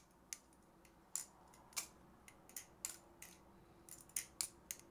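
Titanium Superfly balisong (butterfly knife) being flipped: irregular sharp metallic clicks, about a dozen, as the swinging handles strike the blade's tang and pins.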